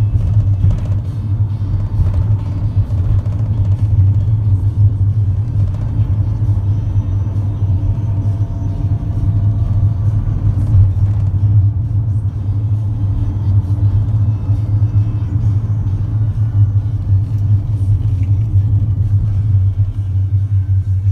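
Steady low rumble of a van's engine and tyres on the road, heard from inside the cabin while driving.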